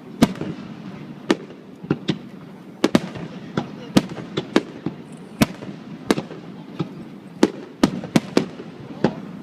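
Fireworks display: an uneven string of sharp bangs from shells bursting overhead, about two a second.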